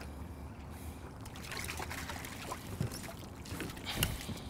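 Water splashing and trickling as a cutthroat trout is scooped into a landing net beside a kayak, with a few light knocks.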